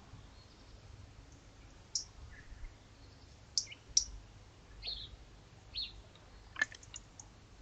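Tits at a bird table giving short, high call notes, one at a time and spaced irregularly, two of them falling in pitch. A sharp click comes near the end.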